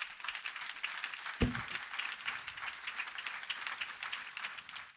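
Audience applauding, with a dense patter of many hands clapping throughout and a brief low sound about a second and a half in.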